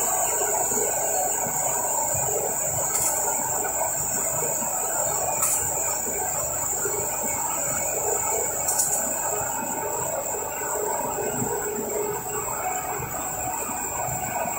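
Three-layer cast stretch film production line running: a steady industrial drone with a constant high-pitched hiss over it, and a few faint clicks. The high hiss eases a little after about nine seconds.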